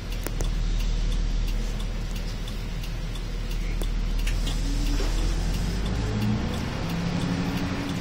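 Cabin sound of a route bus's diesel engine running at low speed, a steady low rumble heard from inside the bus. The engine note rises from about five seconds in as the bus pulls through a turn. A few faint clicks sound through it.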